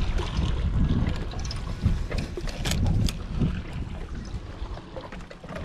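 Wind buffeting the microphone, a low rumble that eases off toward the end, with a few sharp clicks scattered through.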